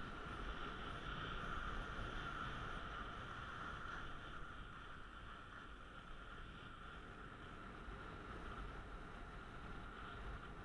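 Steady rushing hiss of skis sliding over groomed snow on a downhill run, with wind rumbling on the microphone.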